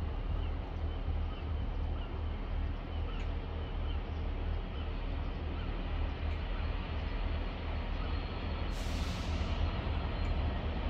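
Distant Class 66 diesel freight locomotive approaching, its engine giving a low, steady throb that grows a little louder. A brief hiss comes about nine seconds in.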